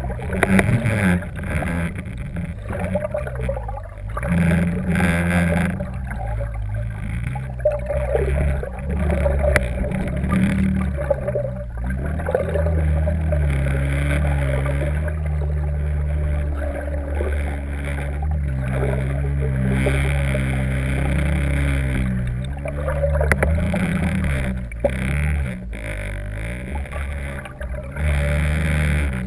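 Water rushing and gurgling past a submerged camera as the sailboat moves through the sea, heard muffled through the camera's waterproof housing. It is a steady, deep sound.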